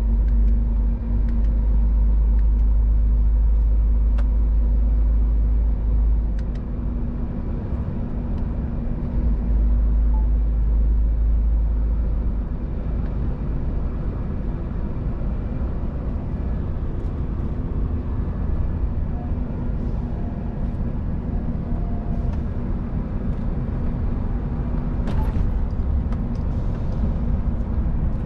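Scania R500 truck heard from inside the cab at cruising speed on a motorway: steady engine drone with road and tyre rumble. The deep low rumble is heavier at first and eases about twelve seconds in.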